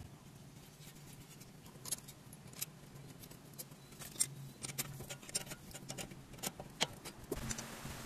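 Irregular light clicks and taps of hands handling the small metal brake hose bracket and its bolt at the front strut, over a low steady hum.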